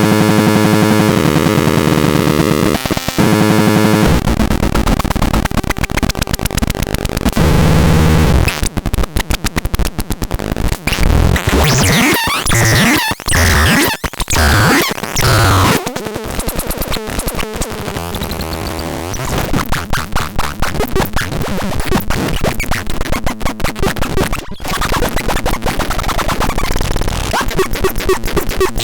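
Harsh electronic synthesizer noise: a held, buzzing multi-tone drone for about four seconds, then chopped, glitching noise with stuttering cut-outs and sweeping textures.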